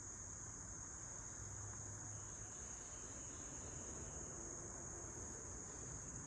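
A steady, high-pitched chorus of insects, such as crickets or katydids, trilling without a break over faint outdoor hiss.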